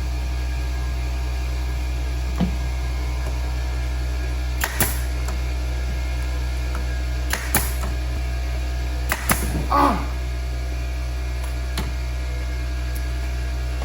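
Staple gun firing staples into seat upholstery: a handful of short sharp snaps a couple of seconds apart, over a steady low hum.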